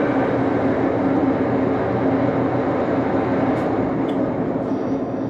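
Old lathe running with its chuck turning, a steady mechanical hum. Near the end it starts to wind down as the machine is stopped.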